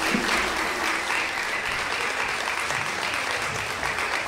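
Audience applauding with steady clapping that slowly thins out.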